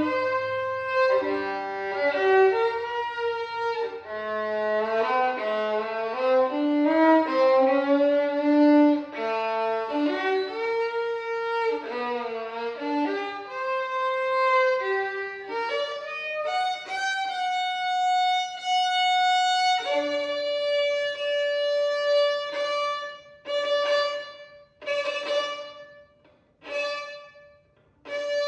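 Violin playing a waltz melody in flowing notes, then holding long notes. In the last few seconds it plays a few short, separate strokes with pauses between them.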